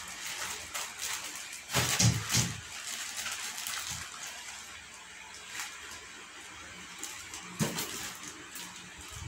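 Clear plastic bags rustling and crinkling as they are handled and pulled from the packing, with louder flurries about two seconds in and again late on.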